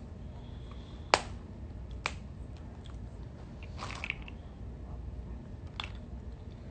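Seafood shells being cracked and snapped apart by hand, in sharp cracks: a loud one about a second in, another a second later, a cluster of smaller cracks around four seconds and one more near six seconds.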